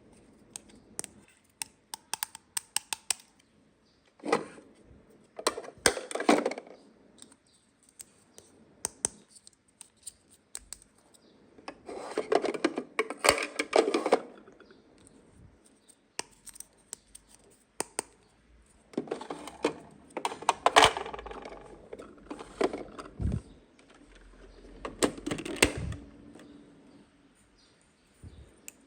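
Small plastic toy pieces and packaging being handled: scattered light clicks and taps, with four longer bouts of rustling and clattering.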